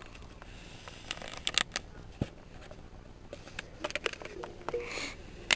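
Packaging being handled close to the microphone: irregular clicks, taps and crinkly rustles from the iPod box's contents and plastic wrap being moved about, with a few sharper knocks.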